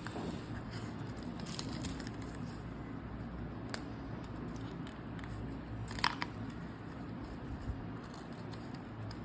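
Soft handling noise from EarPods packaging and cable: faint rustling with a few small clicks, the sharpest about six seconds in.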